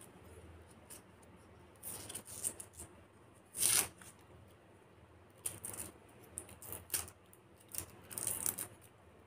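Knife cutting and peeling a red onion: short, scattered crackles and scrapes of the blade and the papery skin, the loudest a little over three and a half seconds in.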